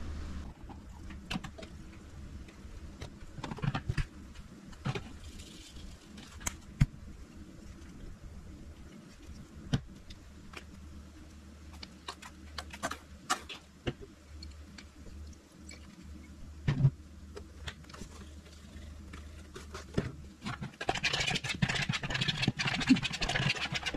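Kitchen utensils and containers clicking, tapping and scraping while ingredients for a dip are measured out and mixed in a bowl, over a steady low hum. Near the end the scraping becomes denser, as of stirring.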